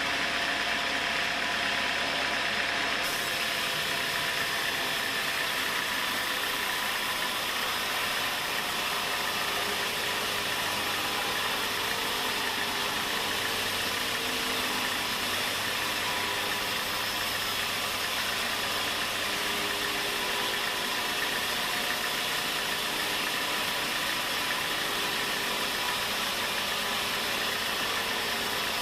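Sawmill machinery running steadily with an engine-like drone and hiss, its sound shifting abruptly about three seconds in.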